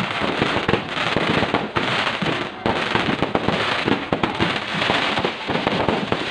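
Fireworks going off in rapid succession: a continuous, dense crackle of many small bangs.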